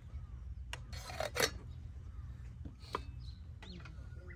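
A few sharp metal clinks of a stainless cooking pot and its lid as the lid is set back on the pot, the loudest about a second and a half in, over a steady low rumble.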